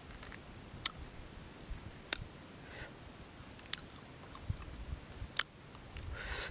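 Close-up chewing of grilled fish, with a few sharp mouth clicks and smacks. A short soft hiss near the end.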